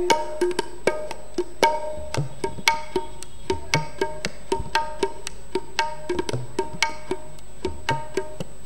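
Tabla playing a steady rhythmic pattern in a sung kirtan between vocal lines: crisp strokes on the small right-hand drum ring with a clear pitch, and the large left-hand bass drum gives deep tones that swell and bend.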